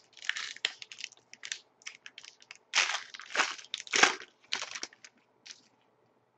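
A foil trading-card pack of 2011-12 Panini Titanium hockey cards being torn open and handled: a run of irregular crinkling and crackling rustles that stops near the end.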